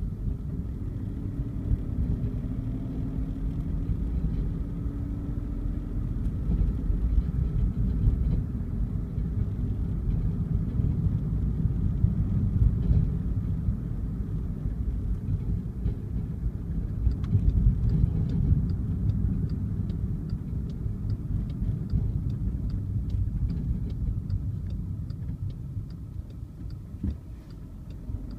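Car cabin noise while driving: a steady low rumble of engine and tyres on the road. Over roughly the last third a regular ticking of the turn-signal indicator joins in, about one and a half ticks a second.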